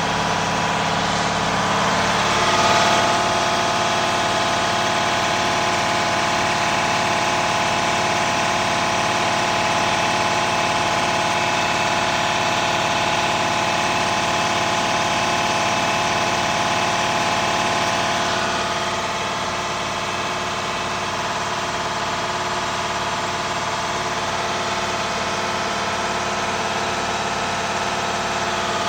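Detroit Diesel truck engine idling steadily, with a brief swell in level about two to three seconds in and a slight drop about two-thirds of the way through. The engine has an exhaust leak.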